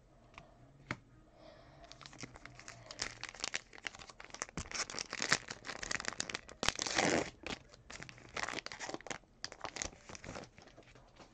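A 2020 Topps Allen & Ginter hobby pack being torn open by hand, its wrapper crinkling in a run of crackles that is loudest about seven seconds in.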